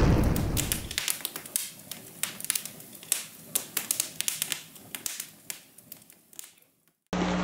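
Intro sound effect: the rumble of an explosion dying away in the first second, then sparse, sharp crackles and pops of sparks that thin out and stop after about six seconds. A steady hum cuts in suddenly just before the end.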